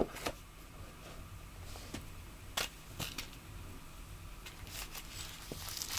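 Light handling of a flashlight's packaging and spare battery tube: a faint rustle with a few scattered small clicks and taps.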